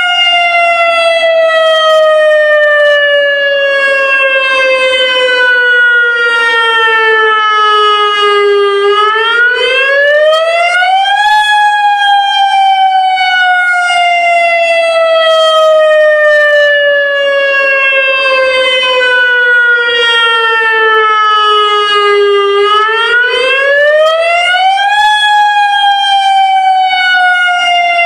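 Federal Signal Modulator lahar warning siren sounding a loud wail in its monthly test. One tone with strong overtones slides slowly down for about ten seconds, then sweeps back up over two or three seconds; it climbs twice, about 14 seconds apart.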